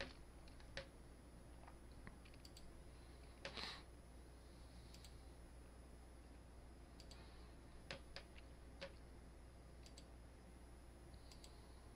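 Faint computer mouse button clicks, about a dozen, scattered irregularly over near silence with a faint steady low hum.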